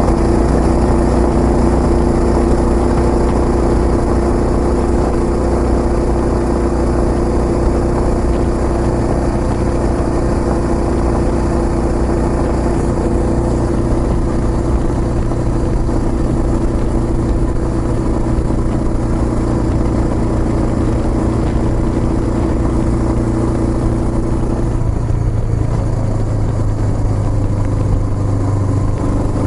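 Kawasaki Estrella's single-cylinder engine running through a Yamato aftermarket muffler, steady, with its pitch shifting about a third of the way in and again near the end.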